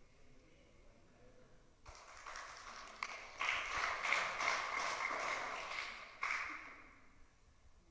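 A small group clapping. It starts about two seconds in, swells, and stops abruptly a little after six seconds, with a steady high tone over the loudest part.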